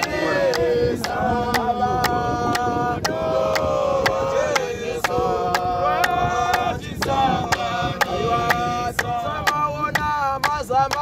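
Male vocal group singing a cappella in close harmony, with hand claps keeping a steady beat about twice a second.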